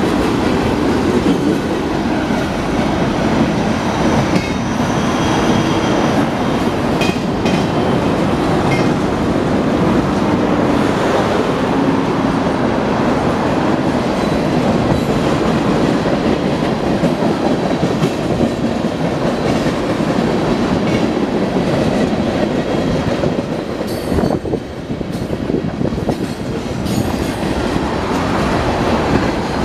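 Union Pacific freight train's cars rolling past close by: a steady, loud rolling noise of steel wheels on the rails, dipping briefly about 25 seconds in.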